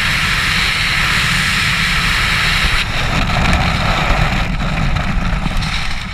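Freefall wind rushing and buffeting over a skydiving camera's microphone, loud and steady, its hiss thinning a little partway through.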